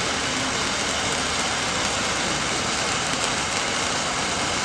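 Steady room noise of a reception hall: an even hiss over a low rumble, with no distinct events.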